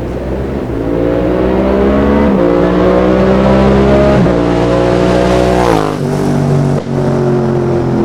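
Yamaha MT-07's parallel-twin engine through an Akrapovic full carbon exhaust with the dB killer removed, accelerating hard toward the listener. It is rising in pitch and shifting up twice with quick quickshifter cuts, then sweeps down in pitch as it passes about six seconds in, with another quick shift just after as it pulls away.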